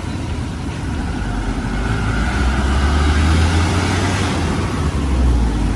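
A motor vehicle's engine running amid street traffic, its low rumble growing louder about halfway through.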